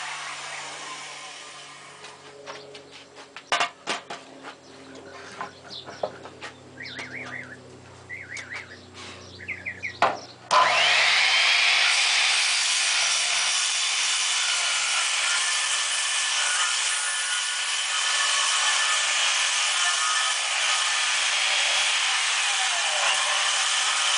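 A few light knocks and taps on wood, then about ten seconds in a power saw starts abruptly and runs steadily, cutting through wood framing.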